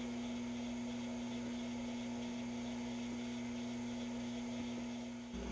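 Steady electrical hum, a single low tone with fainter hum lines under an even hiss, that shifts abruptly near the end.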